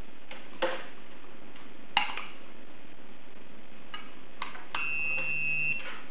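A handful of sharp clicks and taps over a steady hiss, then a single steady high-pitched beep lasting about a second near the end.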